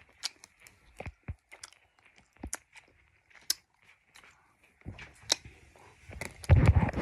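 Close-up mouth sounds of a child chewing a chewy sweet: scattered wet clicks and smacks. A louder burst of noise comes near the end.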